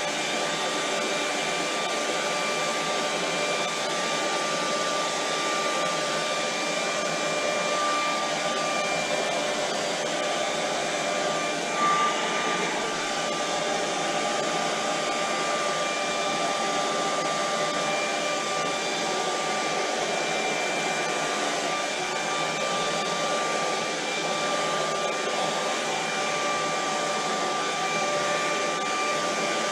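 Handheld hair dryer running steadily, a constant rush of air with a steady whine over it, blowing across wet acrylic paint; it gets briefly louder about twelve seconds in.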